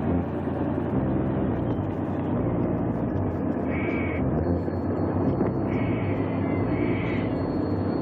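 A motor vehicle's engine running steadily, with a few short high chirps about halfway through and near the end.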